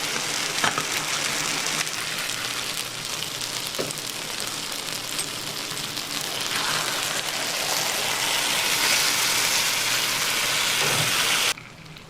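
Food sizzling in a hot pan: a steady hiss that cuts off abruptly near the end.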